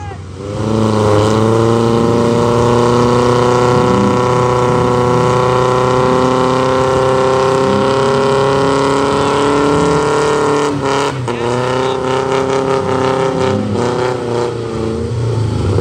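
Small Toyota pickup's diesel engine revved hard and held at high revs, under heavy load as the truck churns through deep mud. The revs climb just after the start, then dip and pick back up a few times in the last five seconds.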